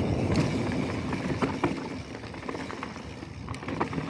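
Mountain bike rolling down a dirt trail: a low rumble of tyres and wind on the mic that eases off over the first couple of seconds, with scattered clicks and knocks from the bike rattling over bumps.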